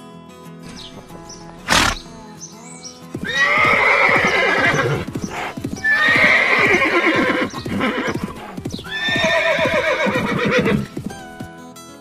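A horse neighing three times in long, loud whinnies, over steady background music. A single sharp knock sounds just before 2 seconds in.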